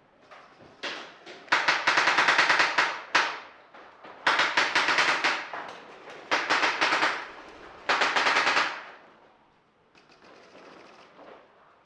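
Paintball marker firing rapid strings of shots in four bursts, each about a second long, with short pauses between; fainter popping from other markers early on and near the end.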